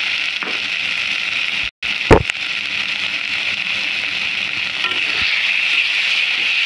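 Spice paste and chopped tomatoes sizzling in hot oil in a metal kadai, a steady hiss. Just under two seconds in the sound cuts out for a moment, then comes one sharp knock.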